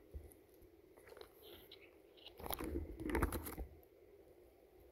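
Dry crackling and rustling of moss and forest-floor litter being pulled apart by hand to uncover chanterelles, in one burst of about a second starting some two and a half seconds in.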